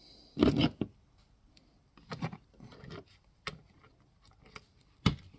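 Handling of small metal and plastic RC steering parts: a short rustling burst near the start, then scattered taps, clicks and scrapes as a spring is pushed on and screwed down, with a sharp click near the end.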